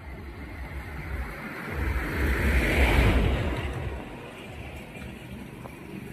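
A vehicle passing by. Its noise rises to its loudest about three seconds in and then fades, over a steady low rumble.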